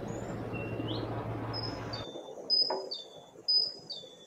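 Birds chirping over a steady background hum. About halfway through, the hum cuts off and a high two-note chirp repeats about once a second, with sharp ticks.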